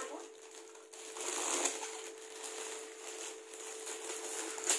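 Shiny metallic foil gift wrap crinkling and crackling as it is cut with scissors and pulled open, louder from about a second in.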